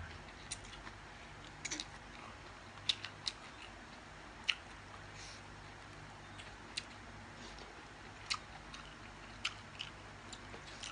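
Mouth sounds of someone eating a rice-noodle salad: scattered short, wet clicks and smacks of chewing, a few each second at most, over a faint steady hum.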